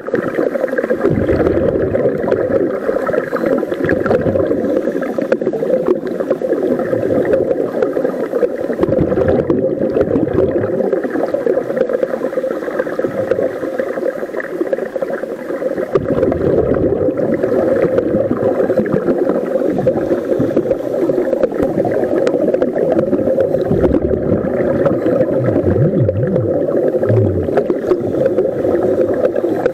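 Underwater sound picked up by a camera submerged beside a scuba diver: a steady droning hiss, with several low gurgling surges of bubbles.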